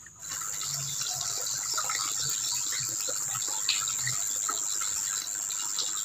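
Steady rush of running water, with a constant high-pitched insect buzz over it.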